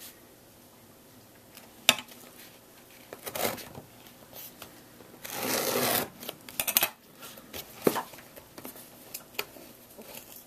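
Scissors cutting open a cardboard box: scattered sharp clicks and short scrapes, with one longer scraping cut lasting about a second and a half a little past the middle.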